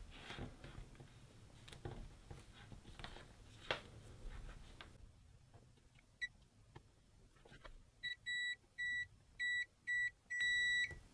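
Multimeter continuity beeper sounding as its probe tips touch the pins of a repaired ribbon cable. Faint scratches of the probes come first, then a single short beep about six seconds in. From about eight seconds there is a string of short beeps, ending in a longer one. The beeps show the bodged cable now connects through to the board.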